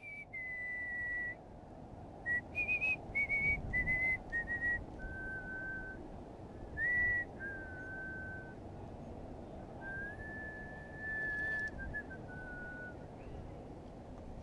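A person whistling a tune: a string of clear notes that step up and down in pitch, some short and some held for about a second.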